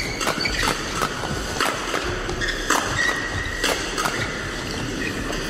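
Badminton rackets striking a shuttlecock in a fast doubles rally: a string of sharp hits, irregularly about half a second to a second apart.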